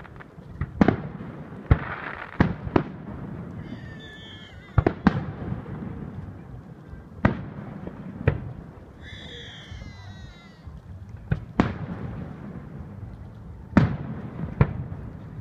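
Fireworks display: sharp bangs of bursting shells at irregular intervals, about a dozen, with stretches of crackling and two brief warbling whistles between.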